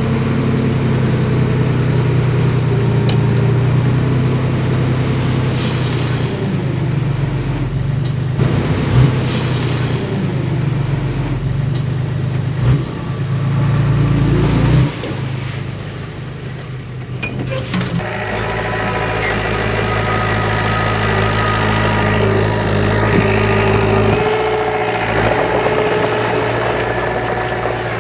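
Diesel engine of heavy earthmoving machinery running steadily. It drops in level about halfway through, then settles to a new, slightly different pitch.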